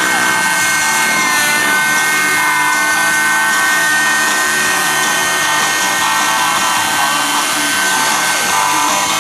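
Glow-fuel (nitro) engine of a radio-controlled model helicopter running at high revs in flight: a steady high-pitched whine over a rushing hiss, dipping slightly in pitch about one and a half seconds in.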